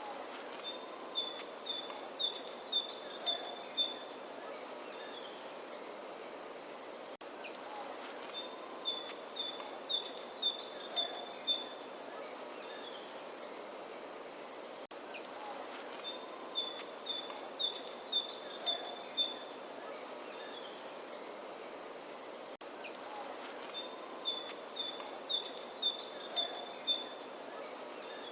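A songbird singing the same phrase over and over, about every seven and a half seconds: a quick falling run of high notes, then a string of short repeated notes. Under it is a steady outdoor hiss.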